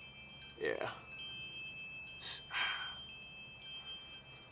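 Chimes ringing: several high, clear metallic tones that start one after another and hang on, overlapping. A short hissing burst comes about two seconds in.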